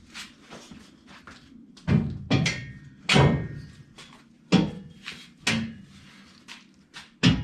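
Steel tire carrier arm being lifted and worked down onto its pivot post on the rear bumper, knocking against the bumper in about six heavy metal clunks, irregularly spaced.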